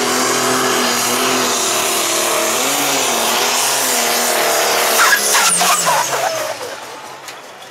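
Pro Stock pulling tractor's turbocharged diesel engine running flat out under load as it drags the sled, its pitch wavering. About five seconds in come several sharp cracks, and then the engine sound dies away.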